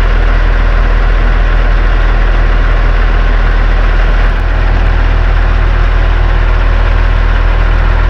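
Kenworth T800 dump truck's diesel engine idling steadily, heard up close.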